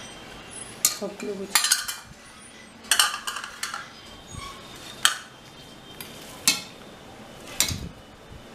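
Stainless steel bowls and thali plate clinking as they are moved about and set down: a string of sharp metallic clinks, about six in all, some in quick clusters.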